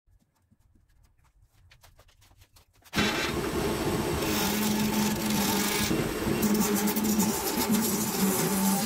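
Belmash wood lathe running while a gouge cuts a spinning wooden blank, roughing out a turned pot: a steady scraping, shaving noise over the motor's hum. It starts suddenly about three seconds in, after a near-silent opening with faint ticks.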